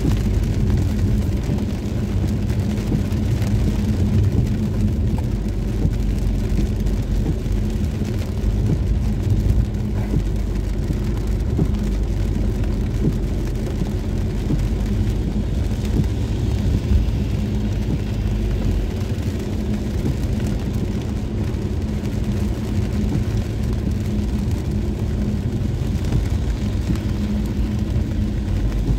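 Car driving on wet roads in the rain: a steady low rumble of engine and tyres with a constant hum, under a hiss of rain and spray.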